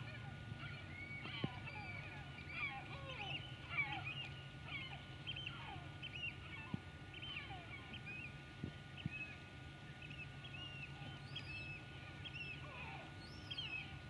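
A flock of birds calling: many short calls overlapping, several a second, many sliding down in pitch, over a faint steady low hum.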